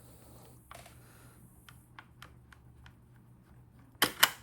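Light scattered metal ticks of tools working at the spring anchor inside a Daisy air rifle. About four seconds in come two loud, sharp clicks as the spring anchor comes free.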